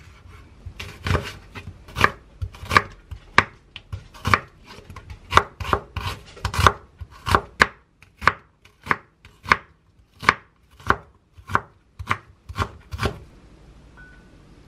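Chef's knife chopping onion on a wooden cutting board: a run of sharp knocks, about two a second, that stops shortly before the end.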